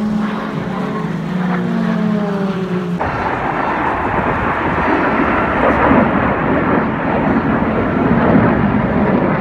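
Military display jets flying past: for the first three seconds a jet whine that drops in pitch as they pass, then a loud steady jet roar.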